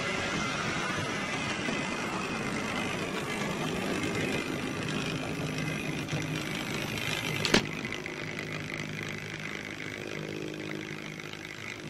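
Model railway locomotive, a Hornby LMS 8F steam engine, running along the track with a steady electric motor whine and wheel noise, one sharp click about halfway through. It slows and quietens near the end as it draws to a stop.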